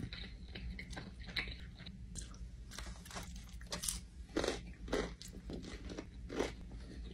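A person chewing a mouthful of sushi: irregular crunching and clicking, with a few louder crunches about four and a half, five and six and a half seconds in.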